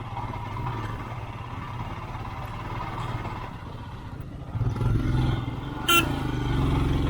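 Motorcycle engine running at low speed over rough ground, growing louder about four and a half seconds in, with one short sharp sound about six seconds in.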